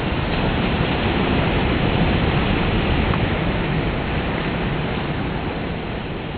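Ocean surf washing onto the beach: a steady rush of water noise that swells a little in the first couple of seconds and eases off toward the end.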